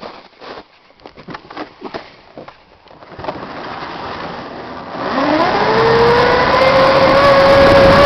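Home-built electric snowmobile, a converted Ski-Doo MX Z, pulling away: a few faint knocks and rustles, then a rushing noise from about three seconds in. About five seconds in, the electric drive's whine rises in pitch as the sled speeds up, then levels off into a steady whine.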